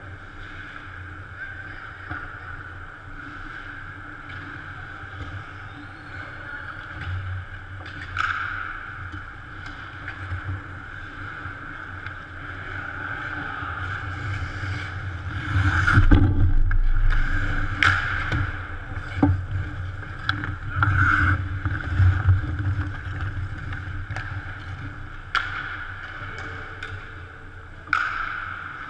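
Hockey skate blades scraping and carving on rink ice, with sharp clacks of sticks and puck, over a steady background hum. The scraping and clacks are loudest about halfway through, where a heavy thump stands out.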